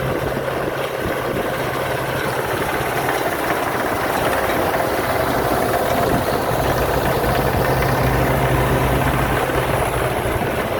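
Rice combine harvester running steadily. Its 260-horsepower engine gives a constant low hum under broad machine noise, which grows a little louder about four seconds in.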